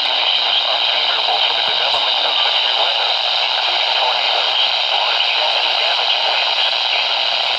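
Steady radio static: a constant hiss from a radio receiver tuned to a weak, noisy NOAA Weather Radio signal.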